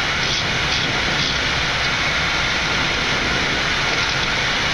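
Steady rushing noise of airflow and engines on a Boeing 787 flight deck in the climb after takeoff.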